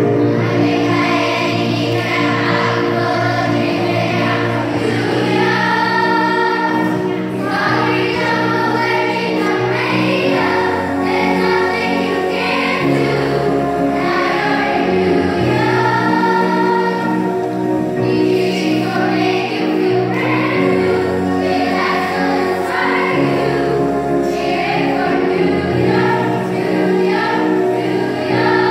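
Children's choir singing in unison with an instrumental accompaniment that carries a steady bass line.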